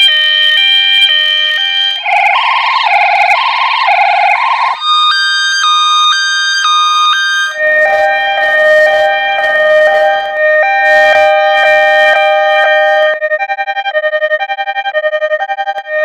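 A run of edited, effect-processed ambulance siren variations: a hi-lo two-tone siren stepping between two pitches, shifting to a new pitch and tone every few seconds. Near the end it turns into a fast stuttering pulse.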